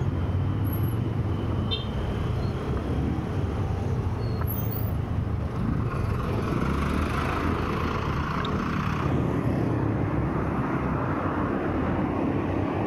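Steady city road traffic heard from a moving bicycle, with wind rushing on the action camera's microphone.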